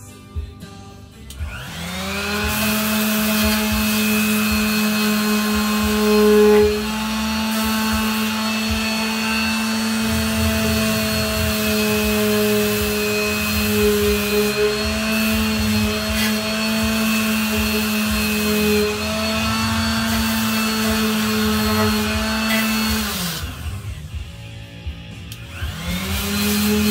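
Electric sander fitted with 80-grit paper, sanding rust off a steel truck step rail. It spins up about a second and a half in and runs steadily with a slight wavering in pitch under load. It winds down about three seconds before the end, then starts up again near the end.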